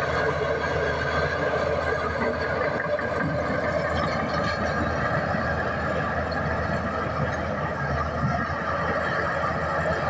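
Komatsu D61EX crawler bulldozer working: its diesel engine runs steadily under load and the steel tracks run as it pushes a pile of earth, then turns.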